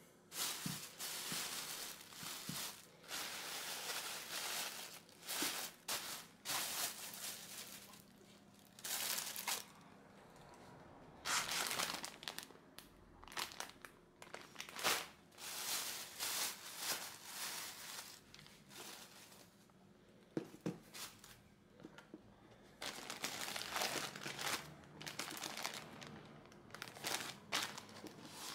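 Thin plastic grocery bags and packaging rustling and crinkling as groceries are unpacked by hand, in irregular bursts with short pauses.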